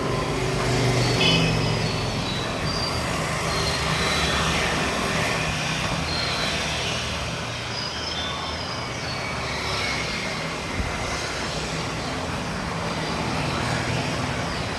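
Steady street traffic noise, with no single event standing out.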